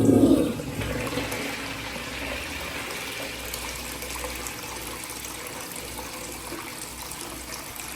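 A restroom fixture flushing: a sudden loud rush of water as the flush opens, then steady rushing water that slowly tapers off.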